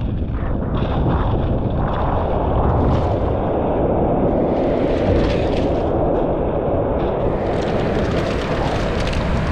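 Loud, steady rumble of wind on the microphone mixed with the surf of a rough sea, with no break or single event standing out.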